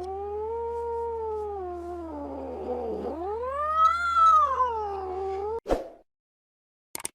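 Angry domestic cat yowling: one long, wavering caterwaul that sags low about halfway, climbs to a higher wail, then cuts off abruptly, followed by a brief click.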